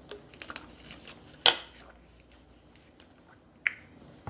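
Eating and handling seafood at the table: scattered sharp clicks and cracks, the loudest about a second and a half in and another near the end.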